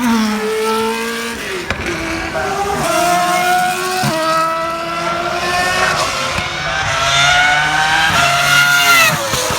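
Mercedes-Benz 190E DTM touring car engine accelerating hard, its pitch climbing through the gears with a sharp drop at each upshift, about four times.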